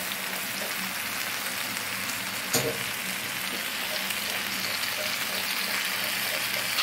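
Chicken tikka pieces sizzling steadily in ghee and butter on a hot tawa, with one short knock about two and a half seconds in.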